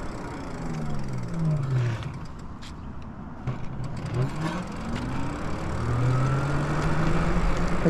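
Electric hub motor of a Lyric Graffiti e-bike whining, its pitch falling as the bike slows for a turn and rising again as it accelerates away, over road and wind rumble. A few faint clicks come in the middle while it coasts.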